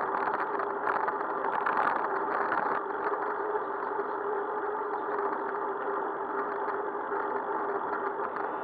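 Motor traffic: vehicle engines running steadily with a constant hum, and some clattering and rattling in the first few seconds.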